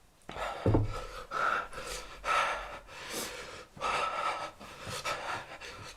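A person breathing hard in a run of loud, noisy gasps, about one a second, as if in distress while struggling to eat.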